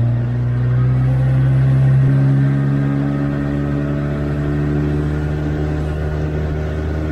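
Small boat's outboard motor running at a steady, moderate speed, a continuous low engine hum that rises slightly and settles about two seconds in.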